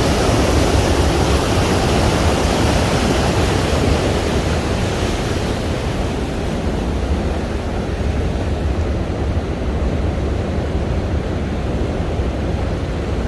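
Arkansas River floodwater rushing through the irrigation headgates at flood stage: a loud, steady rush of water with a deep rumble, its hiss softening about halfway through.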